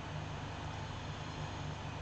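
Steady low hum under a constant hiss: background room noise, unchanging throughout.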